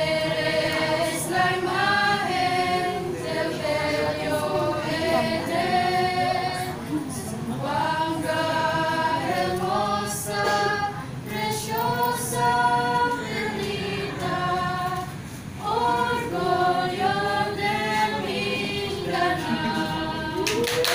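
Small group of teenage students, mostly girls, singing a cappella together. They sing in phrases of held notes, with short breaks for breath between them.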